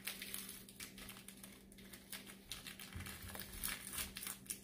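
Plastic wrapper of a SkyFlakes cracker packet crinkling and crackling as it is torn open and handled: a string of faint, irregular ticks and rustles.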